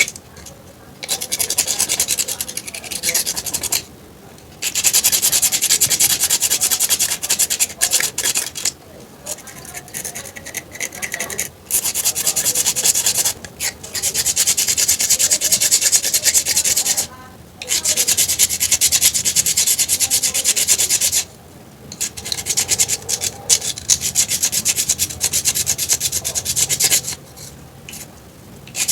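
Dry rubbing or scraping noise in repeated bouts of one to four seconds, separated by short pauses.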